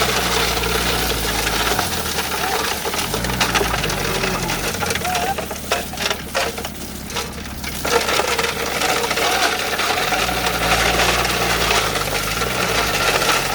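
Heavy diesel engine running, its revs rising and falling back about three times, with scattered sharp metallic clinks and rattles.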